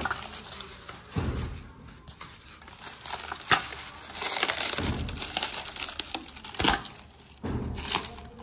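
Packaging wrap being crinkled and torn away by hand as a boxed part is unwrapped, in irregular rustling bursts with a couple of sharp snaps.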